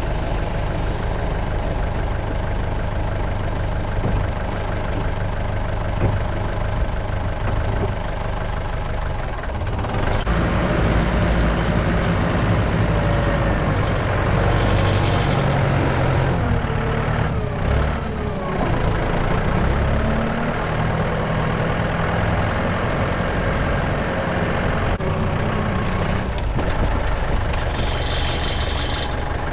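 Tractor engine running steadily; it gets heavier about ten seconds in, and its note shifts up and down about two-thirds of the way through.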